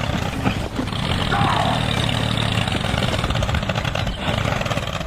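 Engine running steadily with a fast, even chugging rumble. A short voice-like cry sweeps across it about a second and a half in.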